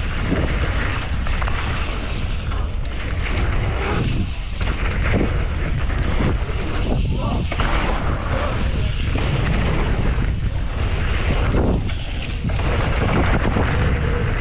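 Strong wind buffeting the camera microphone: a steady low rumble with gusty thumps and rushing noise.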